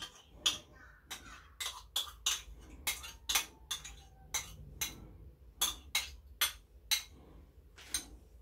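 Spoon tapping and scraping against a small bowl as thick yogurt is knocked out of it into a larger bowl: a long run of sharp clinks, two or three a second.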